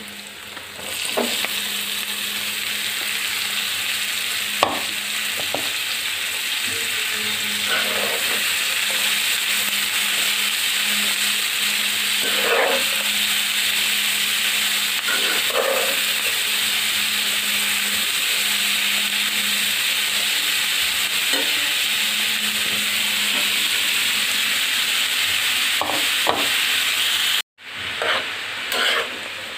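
Chopped mixed vegetables frying in hot oil in a pan with egg and onions: a steady loud sizzle that swells about a second in, with now and then the scrape of a spatula stirring. Near the end the sizzle cuts off abruptly, followed by a few quieter scrapes.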